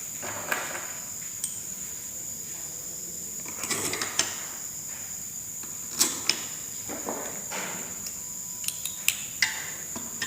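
Irregular metallic clicks and clinks of tools and screws while screws are fitted and tightened on a Suzuki WagonR integrated starter generator. There is a short cluster of clatter a few seconds in and a handful of single sharp taps later.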